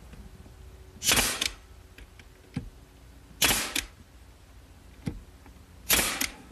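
Nail gun firing three times, about two and a half seconds apart, driving nails through the box's side panel into its bottom. A couple of faint clicks fall between the shots.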